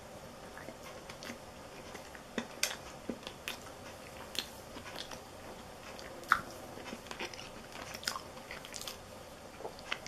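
A person chewing a mouthful of tender pot roast beef: faint, scattered mouth clicks and smacks.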